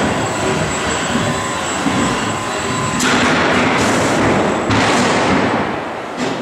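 Combat robot running on a plywood arena floor: steady mechanical noise with a thin high whine, swelling into louder rushes about three seconds in and again near five seconds.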